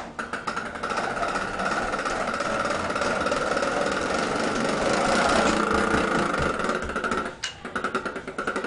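Motorised toy truck running: a steady whir with a fast, dense rattle, which cuts out briefly about seven and a half seconds in and then starts again.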